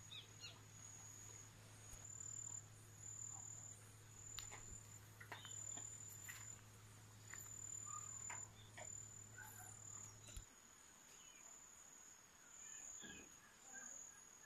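Faint outdoor insect trilling: one high, thin tone repeating in pulses a little under a second apart, with scattered faint ticks and a few short bird chirps.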